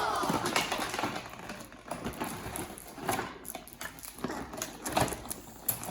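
Toy packaging being handled and torn open: irregular crinkling and crackling with scattered sharp clicks.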